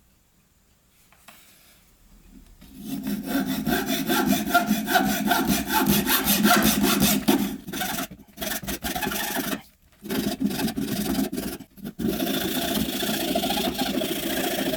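A fine-toothed saw blade cutting hardwood by hand in quick back-and-forth strokes, starting a little over two seconds in and pausing briefly a few times.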